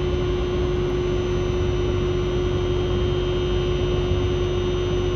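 Steady hum: one constant mid-pitched tone over a low rumble and hiss, unchanging throughout.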